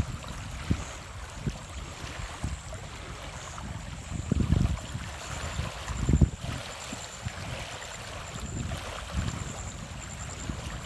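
Wind buffeting the microphone in irregular gusts, over a steady hiss of small waves lapping on a stony shore. Faint, high-pitched chirping repeats in short runs through the second half.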